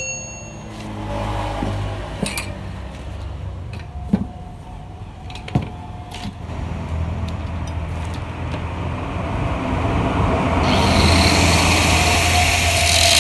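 A few sharp knocks, then a power tool running with a steady low hum that grows louder. About ten seconds in, a loud hissing grind sets in and keeps going, the sound of a cutting disc biting into the steel shell of a stock Yamaha RX-King muffler to cut it open.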